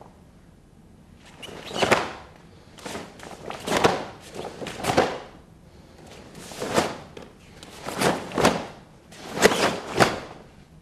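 Karate techniques being performed: about ten short swishing thuds in uneven bunches, as uniform cloth snaps and feet strike the floor.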